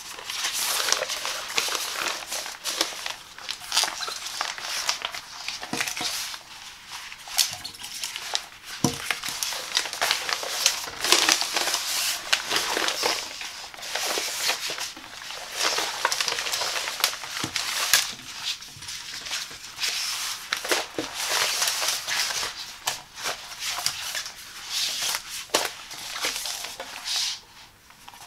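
Frosted PEVA plastic shower curtain liner being handled, smoothed and folded by hand: continuous crinkling and rustling of the thin plastic sheet with many small crackles. It stops shortly before the end.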